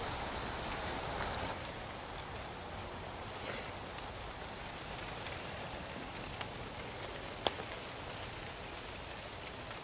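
Cornmeal batter sizzling in hot salt-pork grease in a pan over a campfire: a steady frying hiss with a few sharp pops or crackles.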